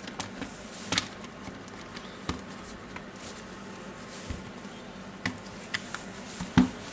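Scattered light clicks and knocks of the Makita DTW1002 impact wrench's plastic housing halves being handled and fitted together, with sharper taps about a second in, after two seconds and near the end.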